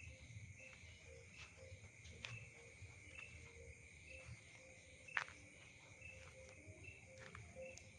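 Faint night insect chorus: a steady shrill cricket drone with a short chirp repeating about twice a second. Scattered light clicks, the loudest one sharp click about five seconds in.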